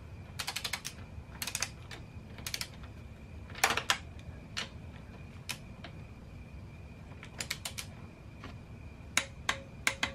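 A ratchet wrench clicking in short quick runs of several clicks with pauses between, as a swingarm linkage bolt is tightened toward its torque; the runs come closer together near the end.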